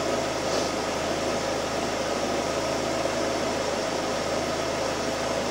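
The 2006 Suzuki Forenza's four-cylinder engine idling steadily at about 800 rpm, heard as an even whirring hum. It is running smoothly after its cylinder head was replaced.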